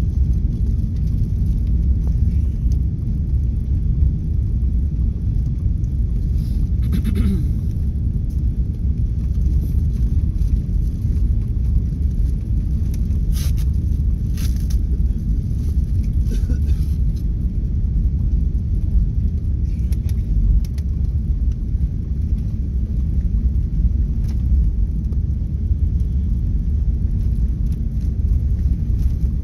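Steady low rumble inside an airliner cabin as the jet taxis: engine noise and wheels rolling on the taxiway. A few brief, sharp noises stand out about a third and halfway through.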